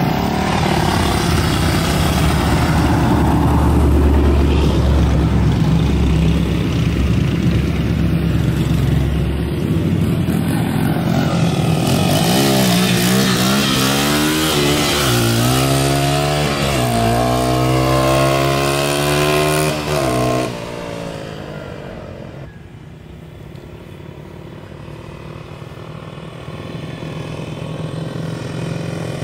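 Small dirt bike engine running close by, then revving hard with its pitch climbing several times as it accelerates away. The loud sound drops off suddenly about twenty seconds in, leaving the engine fainter and distant, slowly getting louder near the end.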